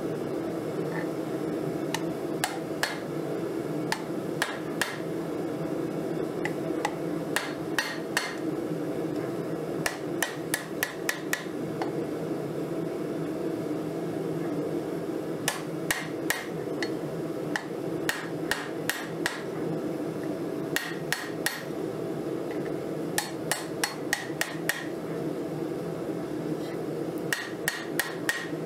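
Hand hammer striking red-hot 1080 high-carbon steel on an anvil while a railroad spike knife is forged, in bursts of several quick blows with pauses between. Each blow rings briefly, and a steady low hum runs underneath.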